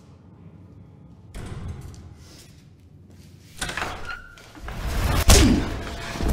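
A cell door banging open, then a scuffle with thuds and one sharp crack about five seconds in, the loudest moment.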